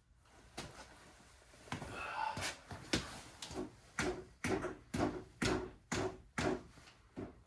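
Clamp and fork tube being handled and adjusted: a series of sharp knocks and clicks, becoming a regular run of about two a second over the last few seconds.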